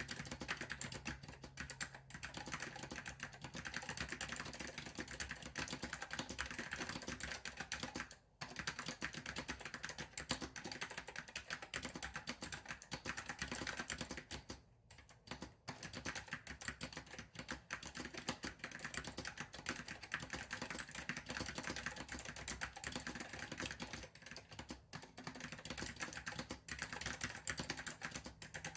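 Continuous fast typing on an Apple M0116 Apple Standard Keyboard with Alps SKCM Salmon tactile switches, a dense run of keystroke clicks broken by brief pauses twice.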